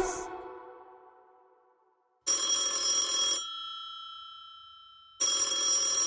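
The end of the song fades out, then a telephone bell rings twice. Each ring is a rapid clattering trill about a second long, and the bell tones hang on and fade after it stops.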